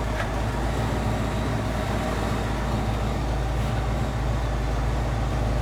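OBS Ford truck engine idling steadily, a low, even hum, running to supply vacuum to the heater/AC vent controls.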